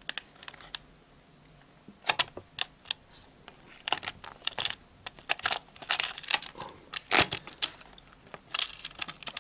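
Stiff clear plastic blister pack crackling and clicking as it is handled and pried open, with a fishing lure pulled out of it. The clicks come in irregular clusters, a few at first, then a thick run in the middle.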